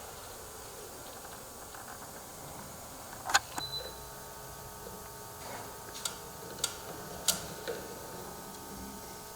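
Manual caulking gun in use while caulking, giving about five sharp clicks of the trigger and plunger spread over a few seconds, with a faint steady hum behind.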